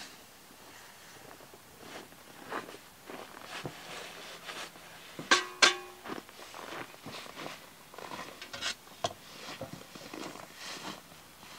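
Snow shovel scraping and scooping packed snow, with footsteps crunching in the snow. About five seconds in, the shovel clanks sharply twice in quick succession with a short ringing tone, the loudest sounds here.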